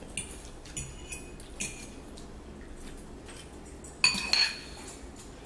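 Metal fork clinking against a ceramic bowl of ramen noodles: a few light clinks in the first two seconds, then a louder ringing clink about four seconds in.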